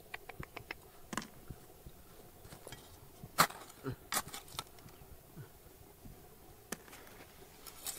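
Sharp clicks and knocks at irregular intervals: a quick run of about six light ticks near the start, and the loudest knock about three and a half seconds in.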